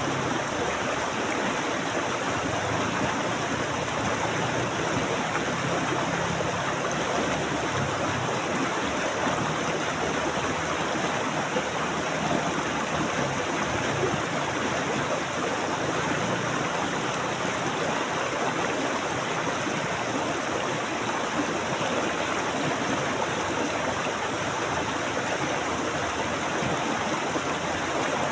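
Flowing stream water, a steady even rush with no breaks.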